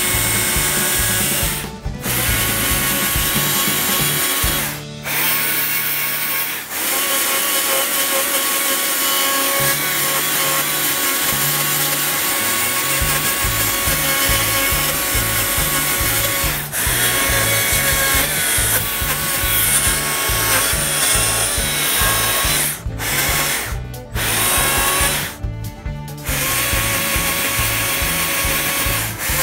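Chainsaw running and cutting into a cherry log, a steady whine that breaks off briefly several times, over background music.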